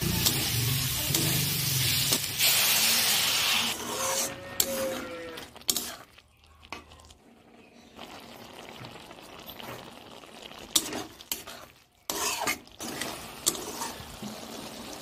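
Sliced areca palm heart frying in oil in a metal wok, sizzling loudly for the first few seconds, while a metal spatula stirs and scrapes against the pan. The sizzle drops away in the middle, and clicks and scrapes of the spatula on the pan return near the end.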